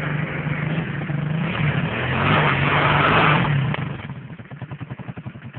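Quad bike (ATV) engine revving under load while its rear wheel is bogged in a hole in loose soil, loudest about two to three and a half seconds in. It then drops back to a quieter, pulsing idle near four seconds in.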